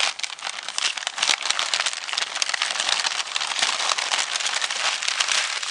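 Shiny Christmas wrapping paper being torn and crumpled as a present is unwrapped: a continuous dense crinkling crackle.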